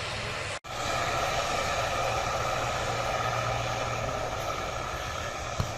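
Steady jet airliner engine noise with no distinct events. The sound cuts out for an instant about half a second in and resumes slightly louder.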